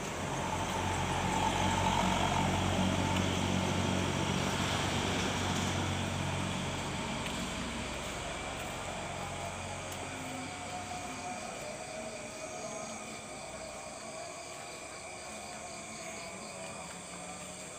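A motor vehicle passing nearby: its engine hum swells in the first couple of seconds, then fades away over the next several seconds. Insects keep up a steady high chirring behind it.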